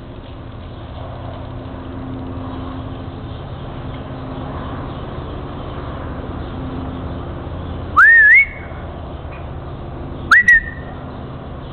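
Two short rising whistles from a person, about two seconds apart, given as a whistle command to a cattle dog. A steady background rumble runs underneath.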